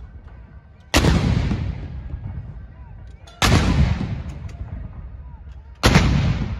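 Towed field guns firing a ceremonial 21-gun salute: three blasts about two and a half seconds apart, each trailing off in a long echo before the next.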